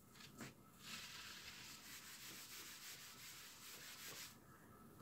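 Whiteboard eraser wiping marker writing off a whiteboard: a faint, steady rubbing from about a second in until shortly before the end.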